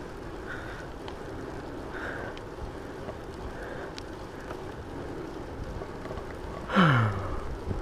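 Steady wind and tyre noise from a fat-tyre Rad Rover electric bike riding along a paved trail. Near the end there is a short, loud low vocal sound that drops in pitch.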